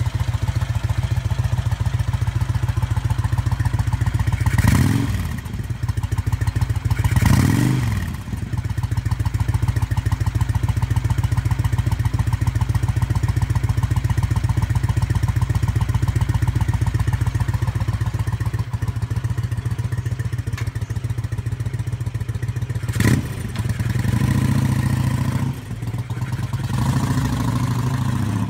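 Homebuilt air-cooled V-twin motorcycle engine idling with a steady beat, the throttle blipped twice within the first eight seconds. A sharp clack comes about two-thirds through, then the engine revs as the bike moves off near the end.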